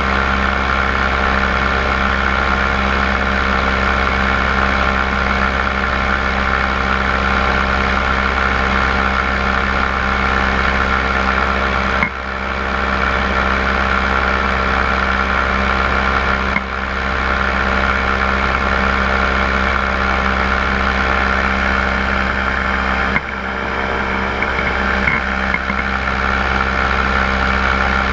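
Paramotor engine and propeller running steadily in flight, heard close up from an onboard camera, holding one even pitch. The sound drops away sharply three times, each for a moment, before returning.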